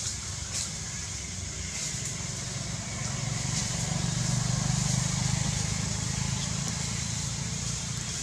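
A vehicle engine's low rumble, swelling about four seconds in and then slowly easing, over a steady high hiss.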